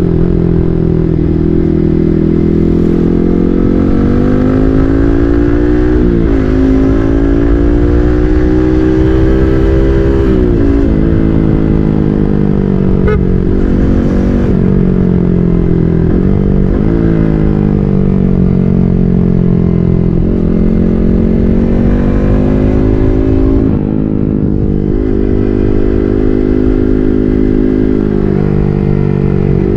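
Yamaha MT-15's single-cylinder engine running through an SC Project full-system exhaust while riding. The engine note climbs in pitch and drops sharply several times as the rider shifts gears, easing off briefly near the end.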